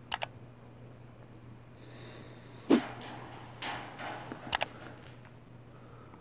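A few sharp clicks and a knock with some rustling handling noise over a steady low hum: two clicks at the start, a loud knock a little under three seconds in, a rustle, then two more clicks.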